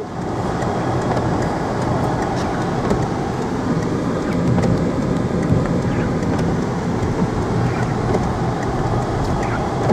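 Steady rumble of road and engine noise inside the cabin of a moving Peugeot car.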